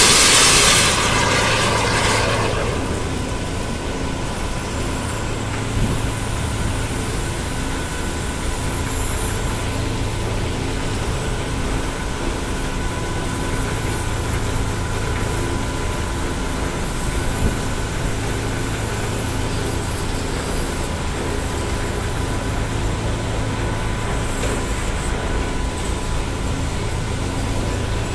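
High-pressure water jet from a hydro jetting lance hissing and splashing for about the first two seconds, then settling to a steady drone with a constant hum as the flexible lance jets inside a tube of the condenser tube sheet, the 1100-bar triplex plunger pump running throughout.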